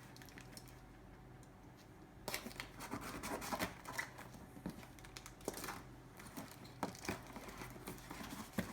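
A keyboard's cardboard box and its packing being pulled and worked at while someone tries to open it: irregular rustling, scraping and tearing that starts about two seconds in, after a quiet start.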